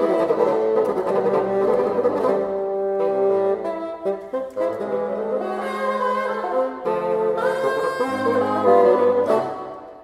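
Bassoon quintet, four bassoons and a contrabassoon, playing a swing jazz arrangement in parts, with held chords and moving lines over a low contrabassoon part. The ensemble fades softer in the last second.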